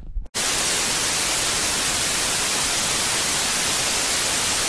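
Steady, loud TV static hiss, like an untuned analogue television, cutting in abruptly a fraction of a second in.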